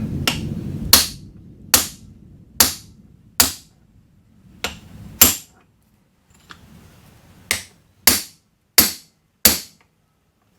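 Hammer tapping the bench grinder's housing halves together during reassembly: about ten sharp taps, about one a second at first, with a pause of about two seconds before the second half of the run.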